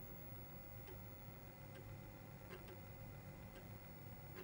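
Apple II 5.25-inch floppy disk drive spinning and writing sectors to the diskette: a faint steady hum with scattered soft, irregular clicks.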